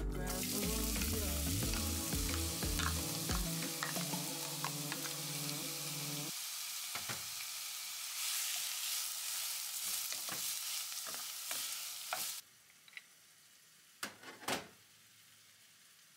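Minced onion hitting hot oil tempered with whole spices, sizzling loudly as it fries and is stirred with a wooden spatula. The sizzle stops abruptly about twelve seconds in, leaving a couple of light knocks.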